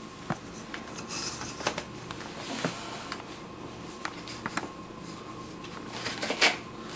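Fabric rustling and scraping as a protective sock is pulled on over a prosthetic foot, with scattered small clicks and handling knocks; the loudest rustle comes near the end.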